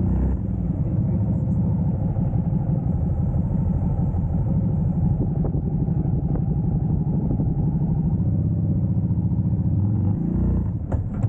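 Motorcycle engine idling with a steady low rumble, rising in pitch about ten and a half seconds in as it is revved to pull away.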